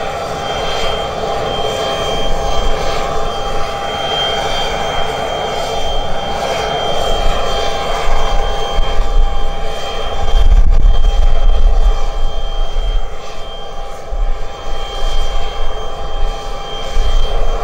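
Aircraft turbine engines running with a steady high whine over a broad roar; a deeper rumble swells about ten seconds in and again near the end.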